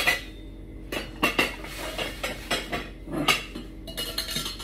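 Dishes clinking and knocking together as a bowl is fetched from the crockery: a string of light, sharp knocks, some with a short ring.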